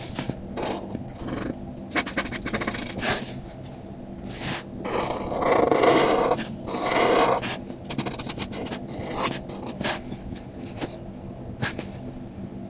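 Paper and craft tools being worked by hand for a handmade card: a run of small clicks, taps and scratches, with two longer, louder scraping rubs in the middle.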